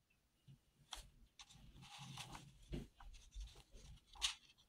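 Faint rustling and crackling of sketchbook paper as the pages are handled and turned, with sharper crackles about a second in and near the end.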